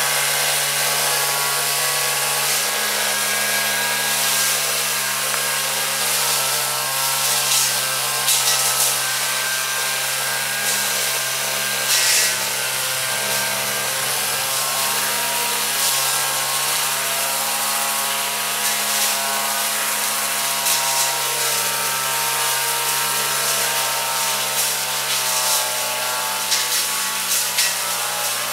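Petrol brush cutter engine running steadily at cutting speed, with a high-pitched note as it cuts through dense weeds. A few sharp ticks stand out, as the cutting head strikes stems.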